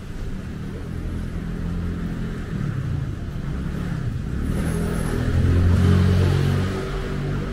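A car driving past on the street, its engine getting louder to a peak about six seconds in and then easing off.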